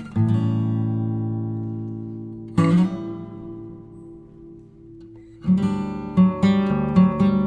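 Background music on acoustic guitar: a strummed chord near the start and another about two and a half seconds in, each left to ring and fade, then a quicker run of plucked notes from about five and a half seconds in.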